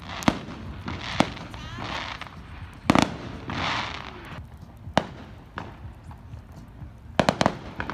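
Aerial fireworks going off: a series of sharp bangs, the loudest about three seconds in, followed by a burst of crackling, then a quick cluster of three bangs near the end.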